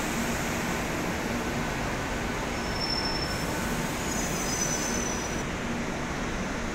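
Madrid Metro Line 1 train slowing to a stop at an underground platform: a steady rumble and hiss, with a few faint high squeals partway through.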